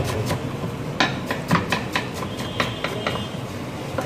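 Kitchen knife chopping a heap of fresh coriander on a wooden board: quick, uneven knocks of the blade against the wood, thinning out near the end.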